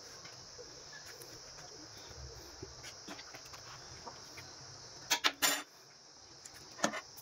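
Crickets chirring steadily in the background. About five seconds in, a few sharp clatters of a spoon against the cooking pot as a layer of chicken curry is spooned onto the rice, and one more clack near the end.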